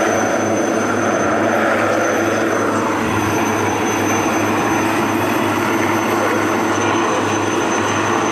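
Low-flying navy helicopters running steadily overhead: a continuous drone of rotor and engines with a thin, steady high whine.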